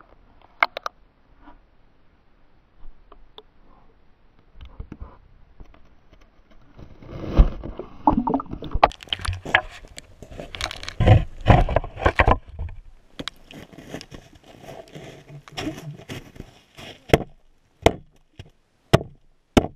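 Muffled knocks, bumps and sloshing water heard through a GoPro's underwater housing as the camera is moved about beneath river ice. The noise is sparse at first, busiest in the middle, and ends with a few sharp knocks.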